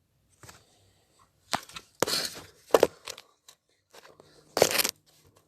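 Cardboard being handled, in short bursts of crunching and tearing: about four separate bursts, the loudest near the end.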